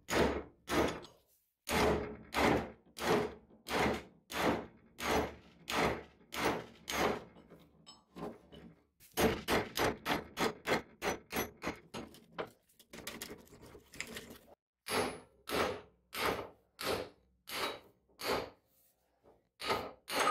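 Hand hammer striking a steel chisel held against an axe head, blow after blow about twice a second, each with a short metallic ring. About nine seconds in the blows come quicker for a few seconds, then turn lighter before the steady pace resumes.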